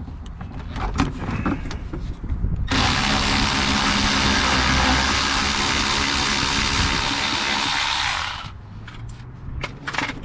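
A cordless power driver runs steadily for about six seconds, backing out a 10 mm bolt that holds the inner wheel-well liner, then stops. Light clicks of tool handling come before and after.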